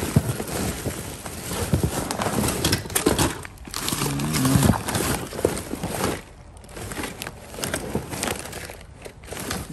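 Plastic bags (black garbage bags and a white plastic shopping bag) rustling and crinkling as hands dig through them and pull them about in a cardboard box, in an uneven run of crackles that thins out after about six seconds.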